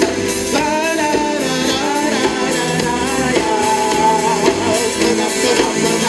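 A live funk band playing on an outdoor stage: a lead melody line over guitar, bass and drums, heard through the open air.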